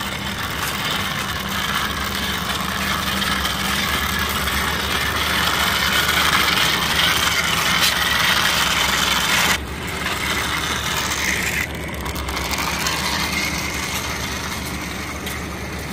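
Small plastic toy fire truck's wheels rolling and scraping along a rough painted concrete ledge as it is pushed by hand, making a steady rushing, gritty noise.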